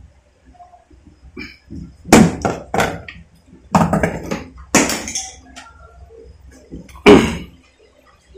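A handful of sharp knocks and clatters at irregular intervals, the loudest about seven seconds in: handling noise from working on the wiring and metal parts of a refrigeration unit.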